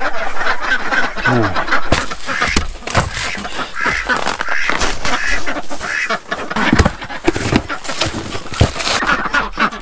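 A flock of Khaki Campbell ducks quacking and chattering continuously, many calls overlapping, with a few sharp knocks in among them.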